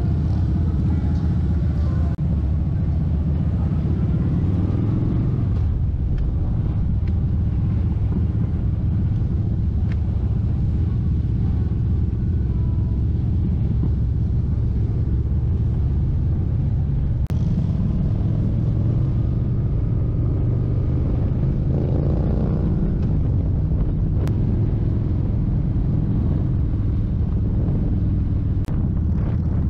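Kawasaki Vulcan 1700 Vaquero's V-twin engine running steadily under way, a continuous low rumble. The engine note rises briefly about three-quarters of the way through.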